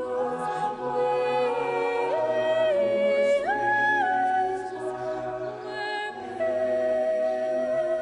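A woman singing a slow, unaccompanied sacred melody in long held notes, with other voices sustaining lower notes beneath her. Her line climbs to a higher held note about halfway through and then comes back down.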